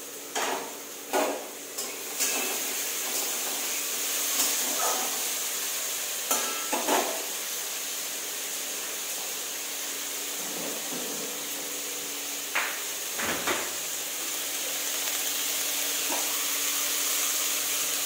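Vegetables frying in a pan with a steady sizzle, while a spatula stirs them, knocking and scraping against the pan a few times in the first seven seconds and twice more later on.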